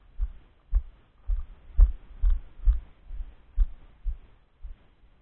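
A person's walking footsteps on leaf-littered woodland ground, heard as dull low thumps about two a second with faint rustling and twig clicks, jolting the moving camera.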